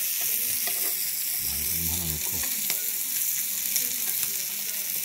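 Meat sizzling on a grill plate: a steady hiss with small scattered crackles, and a brief low hum about two seconds in.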